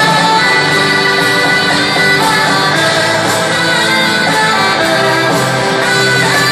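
A live rock band plays loudly through a stadium sound system, heard from among the crowd, with electric guitar in the mix.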